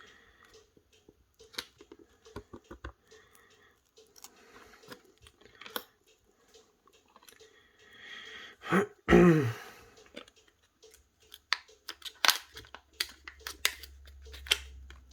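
Scattered clicks, scrapes and small snaps of plastic as a phone's plastic back cover is pried off with tools, with a quicker run of sharp clicks in the last few seconds. A short voice sound about nine seconds in.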